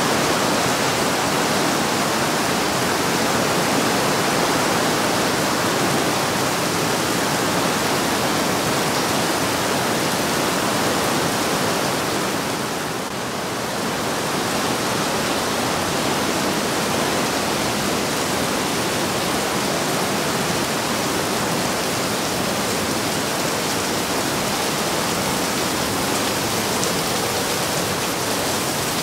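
The Breitach river's whitewater rushing through a narrow rock gorge: a steady, even rush of water that dips briefly about halfway through.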